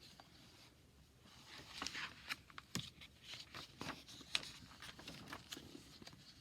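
Rustling and soft taps of a picture book's paper pages being handled and turned, in irregular bursts.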